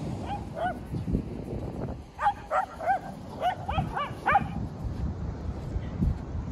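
Small dog yapping while playing: two short, high barks about half a second in, then a quick run of about eight more starting about two seconds in.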